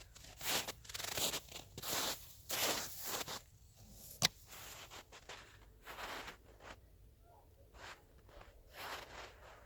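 Footsteps crunching on snow: a step about every half second for the first three seconds, then slower and fainter. A single sharp click about four seconds in.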